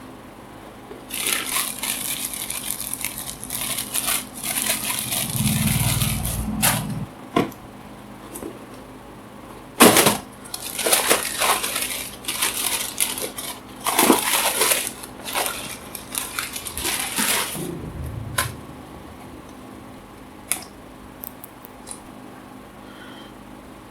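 Shoe packaging crinkling and rustling as it is handled, in two long bursts, with a sharp click about ten seconds in and a few dull knocks.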